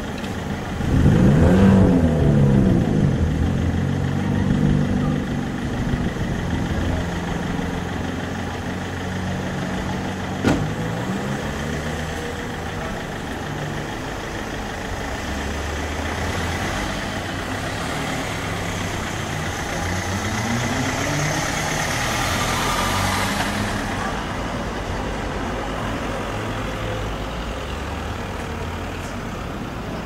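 Cars driving past along a street, their engines rising and falling in pitch as they go by, with tyre hiss swelling as one passes about twenty seconds in. A single sharp knock about ten seconds in.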